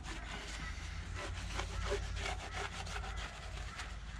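Microfiber rag rubbing along the cast-iron sump gasket rails of a Ford 351 Cleveland block in a run of quick, irregular strokes, wiping the gasket surface clean with wax and grease remover.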